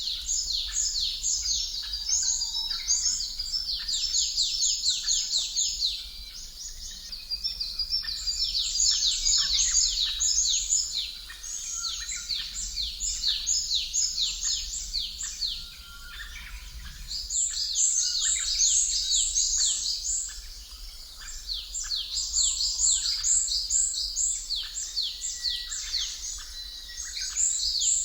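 Birds chirping: many quick, high, falling chirps overlapping in dense bouts that swell and ease every few seconds, over a steady low hum.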